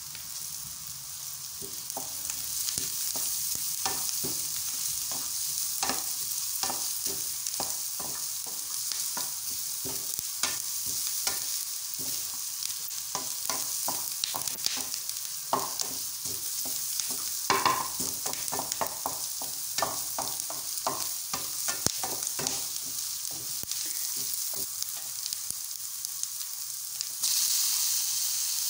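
Diced meat and onions sizzling in a frying pan while a wooden spoon stirs and scrapes, knocking against the pan in quick, irregular clicks. Near the end the sizzling suddenly gets louder as diced tomatoes go into the hot pan.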